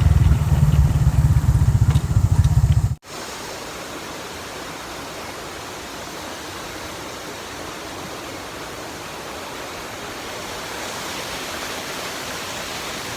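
Steady rushing of a waterfall: an even, unbroken water noise. It follows a loud low rumble that cuts off suddenly about three seconds in.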